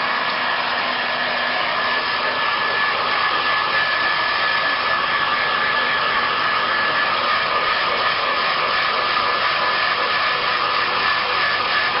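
Handheld hair dryer running steadily, a constant rush of air with a thin, steady high whine over it.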